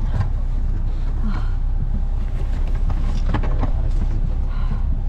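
Airport bus engine running with a steady low rumble, heard from inside the passenger cabin.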